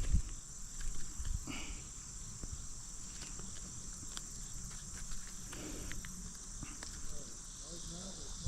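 Steady high-pitched chorus of crickets or similar summer insects, over low rumbling and scattered small clicks and knocks.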